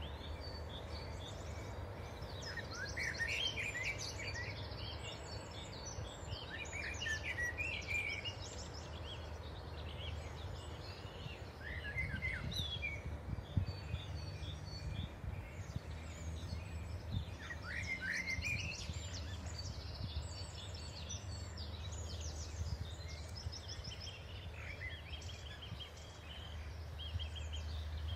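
Small birds chirping and singing in short, repeated phrases over a steady low rumble.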